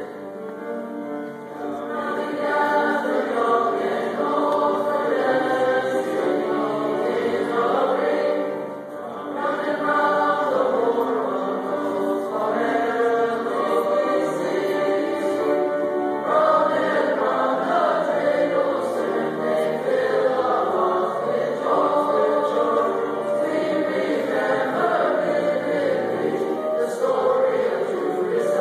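Junior high school choir singing, many young voices together, with a short drop in loudness between phrases about nine seconds in.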